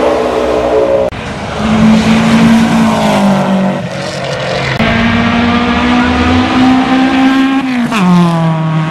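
Racing car engines at high revs as cars accelerate hard past the microphone, in short clips cut together. Near the end one engine's note falls sharply.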